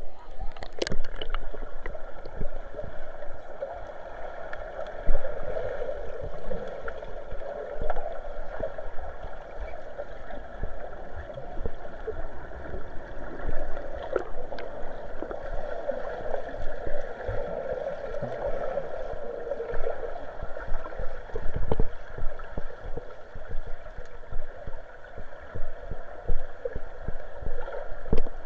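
Submerged camera in a swimming pool picking up a muffled underwater rush of water, with scattered low knocks from the swimmer's movements. There is a brief splash right at the start as the camera goes under, and one louder thump about three-quarters of the way through.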